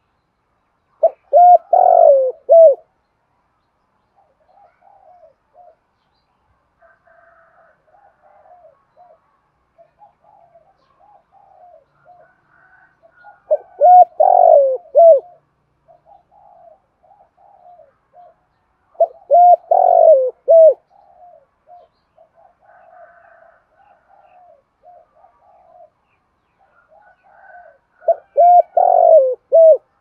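Spotted dove cooing: four loud phrases of several short coos each, coming a second in, at about a third and two thirds of the way, and near the end, with fainter cooing between them.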